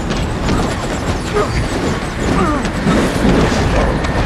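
Steady low rumble of a high-speed train in motion under the scuffling, knocks and strained grunts of a hand-to-hand fight.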